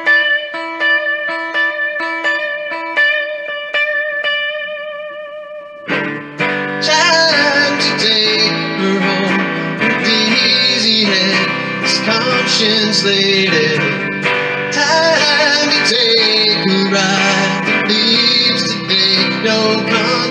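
Guitar music: single picked notes ring out one after another, then about six seconds in the full band comes in much louder, with singing.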